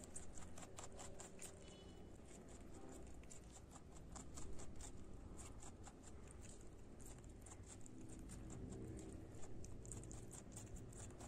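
A rabbit chewing shredded cabbage leaves: quick, crisp crunches, several a second, throughout.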